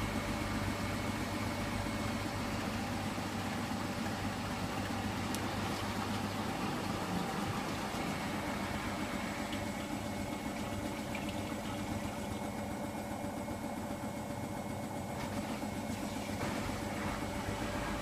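Hoover front-loading washing machine running, a steady quiet hum of its motor and turning drum.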